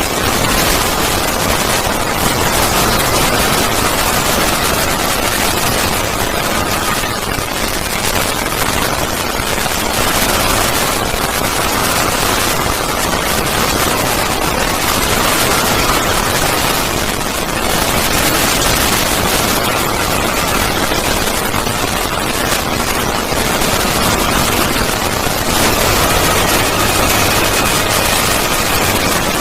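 Synthetic 'void scream' sound effect: a loud, harsh, distorted hiss spanning all pitches, with faint wavering tones underneath and only slight swells in level.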